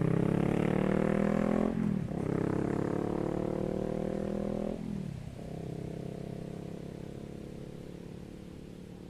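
Honda CBR500R's parallel-twin engine through a Leo Vince GP Corsa exhaust with the dB killer removed, accelerating hard. The pitch climbs in pulls with two quick upshifts, about 2 s and 5 s in, and the sound fades steadily as the bike pulls away.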